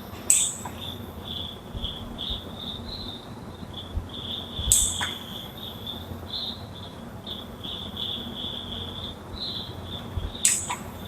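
Crickets chirping in a continuous high, pulsing trill. Three sharp clicks from blue-switch mechanical keyboard keys come near the start, about five seconds in, and near the end.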